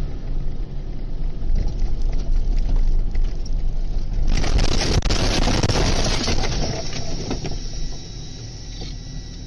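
A large vehicle ploughing through deep snow in a blizzard: a heavy, continuous rumble, joined about four seconds in by a louder rushing hiss as it runs off the road.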